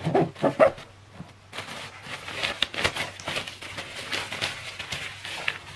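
Fabric stuff sack rustling and crinkling with many small irregular clicks as its drawstring is loosened and the rolled camping mat is worked out of it, starting about a second and a half in.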